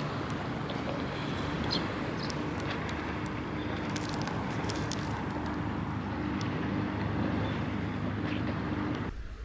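Steady outdoor rumble of road traffic with a faint low hum, cutting off suddenly near the end.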